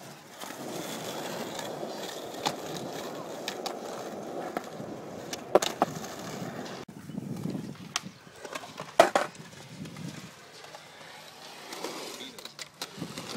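Skateboard wheels rolling over concrete, with several sharp clacks of the board striking the ground, the loudest about five and a half and nine seconds in. The steady rolling noise drops away about seven seconds in.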